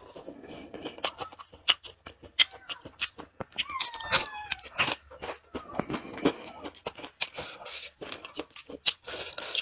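Close-up crunchy chewing of a small fried fish, with crackles and clicks throughout. A cat meows with a falling pitch about four seconds in.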